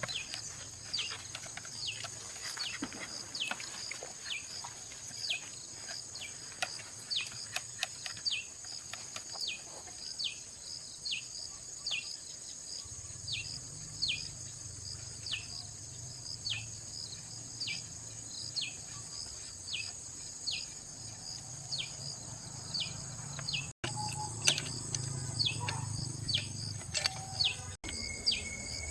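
Insect chorus: a steady high-pitched drone with a short falling chirp repeated over and over, about twice a second.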